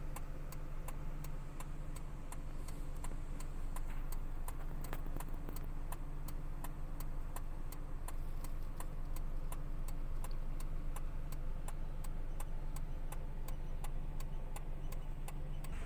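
Vehicle turn-signal indicator ticking at an even pace, about three clicks a second, over the steady low hum of the idling engine of a ute pulled over at the roadside.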